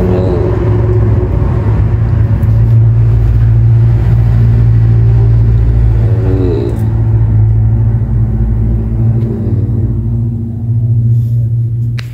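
A motor running steadily, a loud low hum that holds one pitch throughout.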